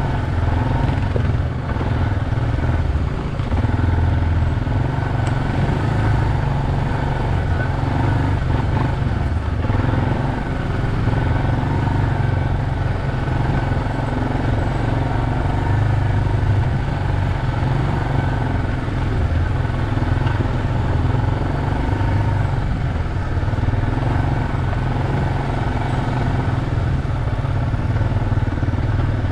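ATV (four-wheeler) engine running steadily as it is ridden.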